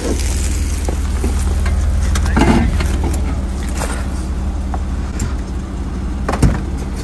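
Jeep Wrangler Rubicon engine running steadily under low load as the Jeep crawls over a rock ledge, with a few brief knocks, the sharpest near the end.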